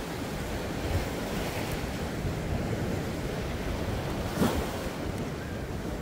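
Sea waves surging and breaking, with wind noise on the microphone. A brief sharp burst stands out about four and a half seconds in.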